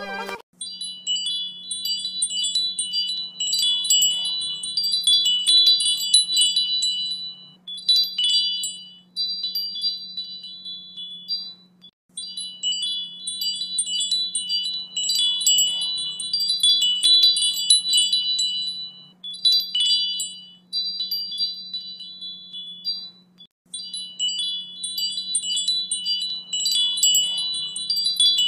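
Wind chimes tinkling: clusters of small high ringing metal tones that swell and thin out, pausing briefly twice, over a faint steady hum.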